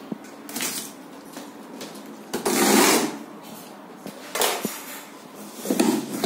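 Rustling and handling noises in four separate bursts, the longest and loudest about halfway through, with a few small knocks.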